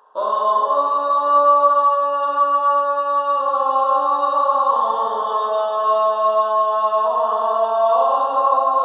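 Background music of sustained, chant-like massed voices holding slow chords that shift every second or two. It starts abruptly just after the cut.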